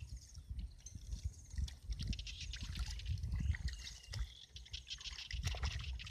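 Shallow muddy water sloshing and splashing as a plastic basket is scooped through it and lifted out, with drips and the wet squelch of boots in mud. The splashes come in quick irregular bursts over a steady low rumble.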